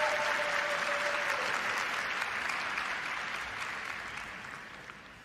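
Arena audience applauding, fading steadily away over a few seconds, with a held tone over the first second and a half.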